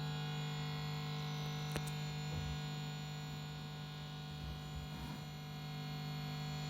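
Vox AC10 guitar amplifier giving off a steady mains hum and buzz with nothing being played: the noise fault the amp has. A single sharp click about two seconds in.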